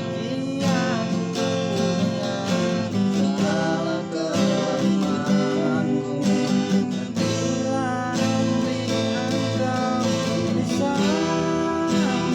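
Acoustic guitar music: chords strummed steadily, with a melody line above them that slides between notes.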